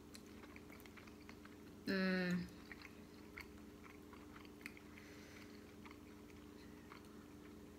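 Quiet chewing and small clicks of people eating a Cajun seafood boil with their hands, with a short voiced hum about two seconds in.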